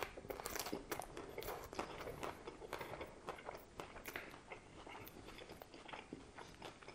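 A person chewing a mouthful of chicken bacon ranch salad on iceberg lettuce: a rapid run of crisp crunches, fewer toward the end.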